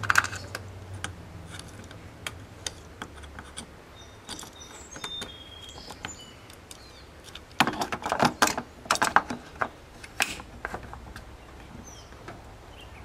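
Hard plastic clicks and rattles as an LED license plate light module and its wiring plug are handled, plugged in and pressed into the trunk-lid housing. The clicks are scattered at first, with a dense run of sharp clicks about eight to nine and a half seconds in and a few more just after.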